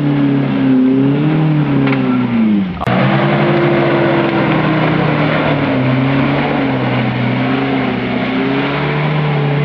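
Off-road 4x4 engine running hard under load, its pitch rising and falling as the throttle is worked. A little under three seconds in the engine bogs down and there is a single sharp knock, then it revs back up and keeps labouring.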